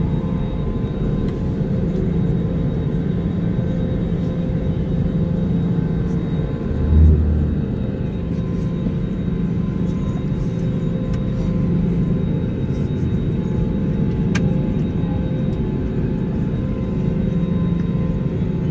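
Airbus A320neo engines and rolling airframe heard from inside the cabin over the wing: a steady low rumble with a constant hum, as the jet moves along the wet runway. A single dull thump comes about seven seconds in.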